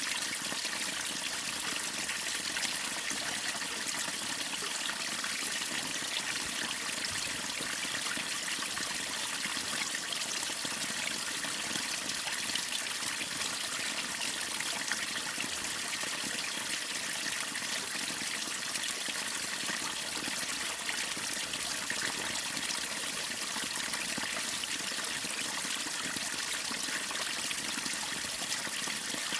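Waterfall: water falling and splashing steadily, an even rushing hiss that never lets up.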